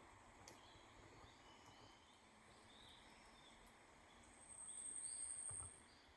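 Quiet campsite ambience with faint, scattered high chirps of wild creatures; about four seconds in, a single steady, very high, insect-like trill sounds for about a second and a half, then stops.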